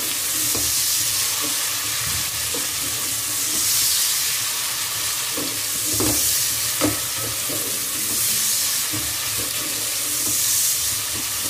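Sliced onions sizzling in hot oil in a metal pot, frying until they turn brown, with a spoon stirring them and now and then scraping and knocking against the pot.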